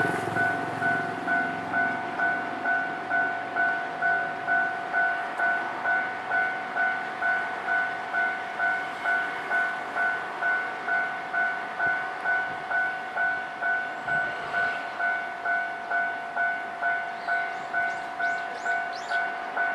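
Japanese railway level-crossing warning bell ringing on and on, an even two-tone electronic ding about one and a half times a second. It signals that a train is coming and the barriers are down.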